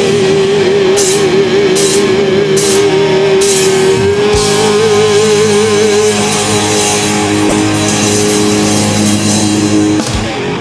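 Heavy metal band playing live: distorted guitars, bass and drums under a long held note with vibrato, with a few evenly spaced cymbal crashes in the first seconds. The whole band stops together at the very end as the song finishes.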